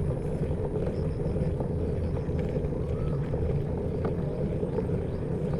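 Steady low rumble of wind and road noise from a bicycle riding along a village road, with a few faint bird chirps above it.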